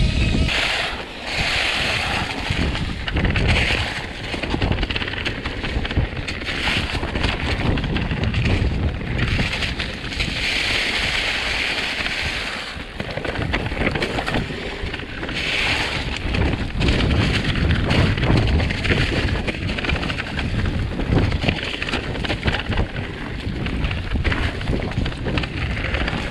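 Wind buffeting the microphone over the steady rumble and rattle of a mountain bike riding dirt singletrack, with stretches of louder hiss from the tyres on the trail surface.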